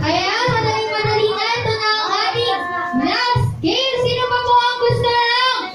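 A high child's voice singing long held notes over music with a steady beat of about two thumps a second.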